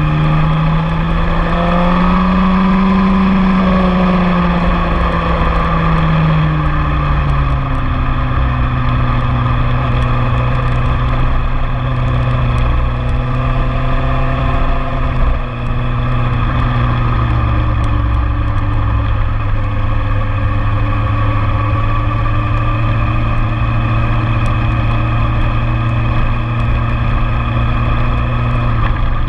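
Motorcycle engine running hard under way, picked up by a bike-mounted camera, with wind rushing over the microphone. Its pitch rises briefly a couple of seconds in, drops by about eight seconds, then holds steady.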